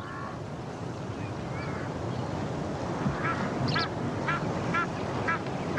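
A bird calls in a series of short, repeated calls, about two a second, starting a little past halfway, over a steady outdoor background hiss.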